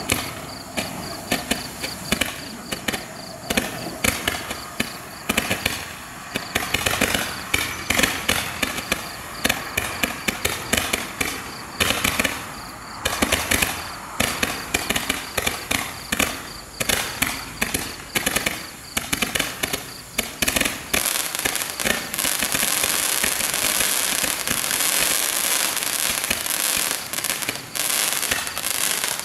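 A 300-shot multi-shot roman candle firing rapid shots, several a second, as it launches coloured pearls with glittering tails. In the last third the shots run together into a dense, steady noise.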